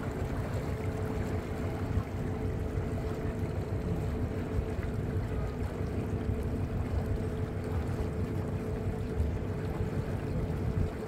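Electric passenger boat under way: a steady low hum from its motor over the rush of water along the hull, with wind buffeting the microphone.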